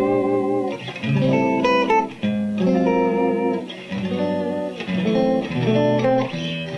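Clean electric guitar played through a small EL84 valve amplifier at half power: a phrase of notes and chords, each ringing out briefly before the next.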